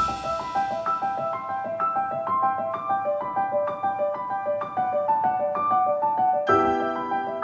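Background music: a piano playing a quick, even run of single notes, with lower chords joining about six and a half seconds in.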